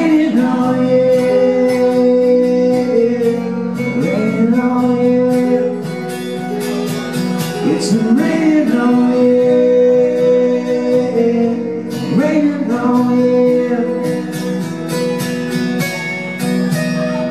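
Acoustic guitars playing the closing bars of a song, with held, wordless singing over them.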